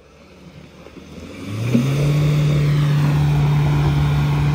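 A vehicle engine revs up hard about a second in and holds a high, steady note, straining to pull a vehicle stuck in deep mud free.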